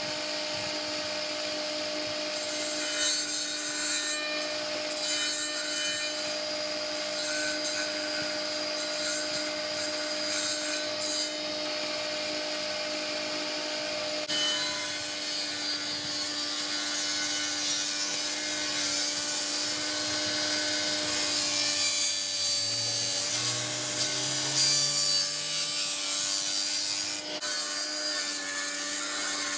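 Table saw running with a steady hum and ripping wood lengthwise: one long cut from about two seconds in to about fourteen seconds, then a second long cut that ends shortly before the close.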